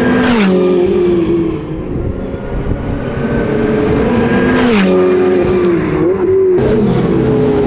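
Ferrari race cars running past the pit wall at speed. The engine note drops sharply about half a second in and again near five seconds, and another engine comes in near the end.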